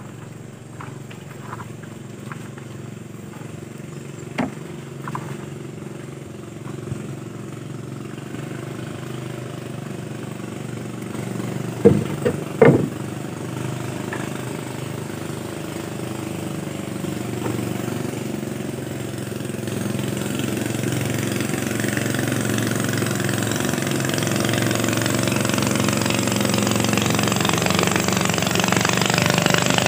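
Small boat engine running steadily and growing gradually louder. Three sharp knocks sound about twelve seconds in.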